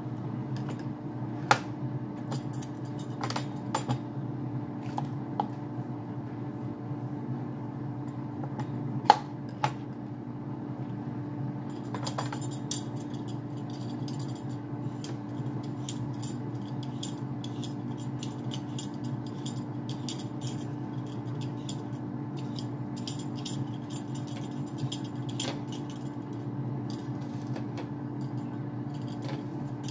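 Air fryer running with a steady fan hum. Over it, a knife and utensils are handled on a plastic cutting board, giving a few sharp clicks and knocks, the loudest about nine seconds in. From about twelve seconds in, a faint high crackle joins.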